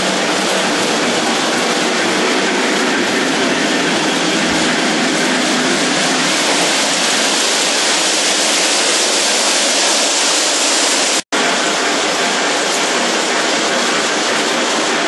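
Lionel model trains running on their track loops: a steady, loud rolling noise of the train on the rails, with a momentary gap in the sound about eleven seconds in.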